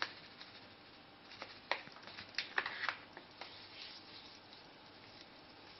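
Faint handling sounds: a plastic seasoning packet crinkling as it is put down, and hands rubbing spice into raw pork with soft squishes. The short crinkles and clicks come in a cluster in the middle, then die down.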